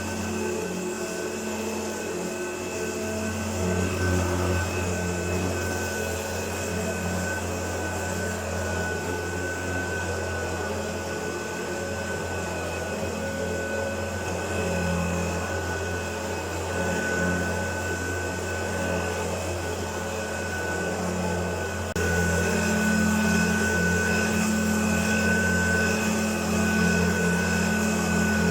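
Hoover Turbopower U2332 upright vacuum cleaner running, a steady motor drone with a high whine; it gets louder about three quarters of the way through and stays louder.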